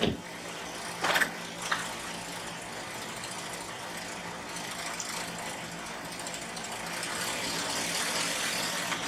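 Car engine idling steadily, with two short sharp knocks a little over a second in.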